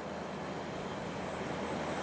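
Boeing 737-800's twin CFM56-7B turbofan engines running up at the start of the takeoff roll: a steady, distant rushing jet noise that slowly grows louder.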